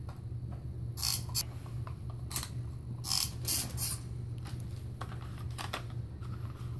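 Toy monster trucks being pushed and rolled across carpet, their wheels and gears whirring and clicking in several short bursts, over a steady low hum.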